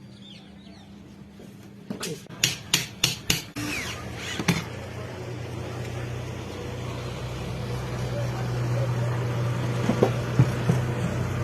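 A hammer tapping on a mixer grinder's motor parts: about five quick sharp knocks in a row, then one more. A steady low hum sets in after the knocks and slowly grows louder, with a few lighter knocks near the end.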